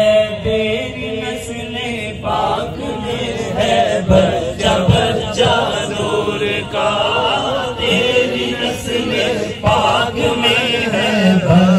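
Unaccompanied naat sung by male voices, several at once, in a slow chanted melody.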